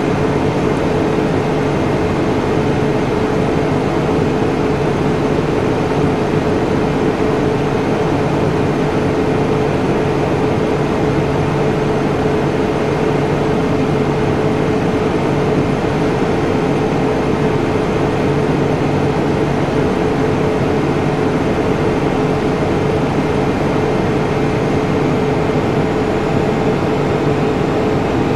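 Steady mechanical hum over an even hiss, with a constant mid-pitched tone, unchanging throughout.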